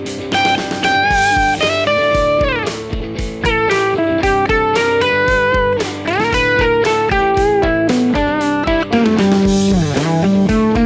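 Electric guitar lead played with the E minor blues scale over a G major backing track with drums: sustained single notes with string bends and slides. The lines sound consonant and major in feel, since the notes fall within G major.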